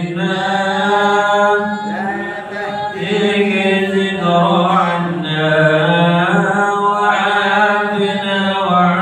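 Islamic devotional chanting: a voice line held in long, drawn-out melodic notes, with short breaks between phrases.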